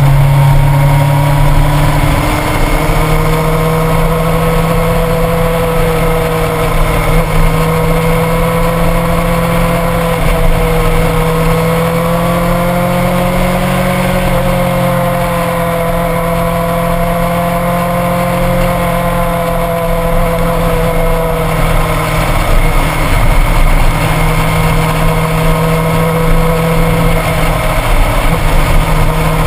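Motorcycle engine running while riding, its pitch rising and falling gently with the throttle, over steady road and wind noise picked up by a bike-mounted camera.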